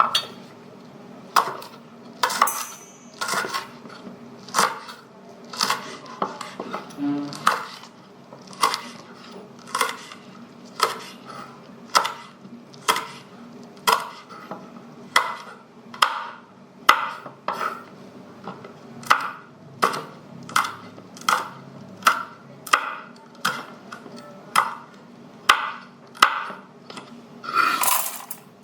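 Knife slicing chili peppers, a steady series of short cutting strokes about once a second, with one longer stroke near the end.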